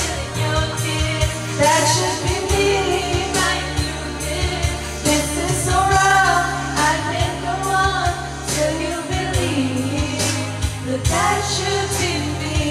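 A woman singing a pop song into a karaoke microphone over a backing track with a steady bass beat.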